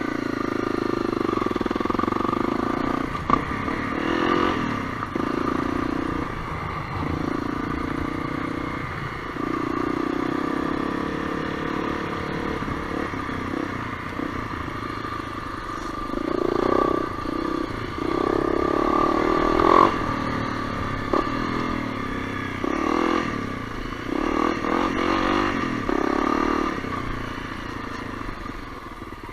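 Honda CRF250L's single-cylinder four-stroke engine being ridden, the throttle opening and easing off every second or two. A steady high whine runs under the engine note.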